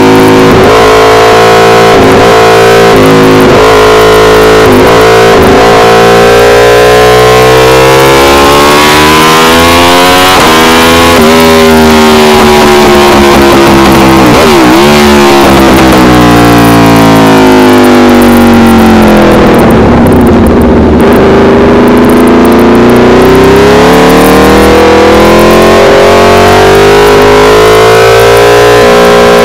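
Aprilia RSV4 Factory V4 engine through an SC-Project CRT exhaust at full throttle on track. The revs climb and drop sharply at each gear change, several quick shifts in the first few seconds, fall off to a low point about 20 seconds in, then pull up again. The recording is so loud it distorts.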